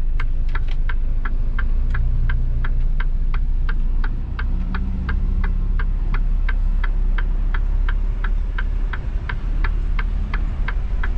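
Truck indicator relay ticking steadily at about three clicks a second inside the cab, over the low drone of the Mitsubishi Fuso Super Great's diesel engine running as the truck pulls into the ferry queue.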